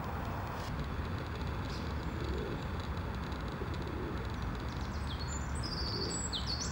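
Small songbird singing a run of quick, high, sweeping chirps, starting about five seconds in, over a steady low background rumble.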